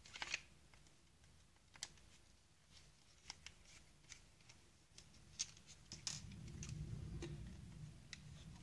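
Faint, scattered clicks and small knocks of hard plastic parts being handled and pried off a Saeco Royal coffee grinding unit's base with a small screwdriver. A low rumble of handling noise builds near the end.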